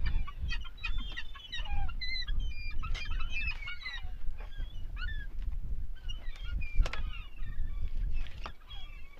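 A flock of gulls calling, many short overlapping cries one after another, over a steady low rumble.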